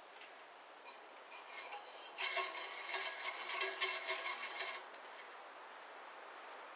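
A metallic scraping and rattling with a ringing edge, starting about two seconds in and lasting about two and a half seconds, as metal parts of the bandsaw are handled and turned by hand; a few faint clicks come before it.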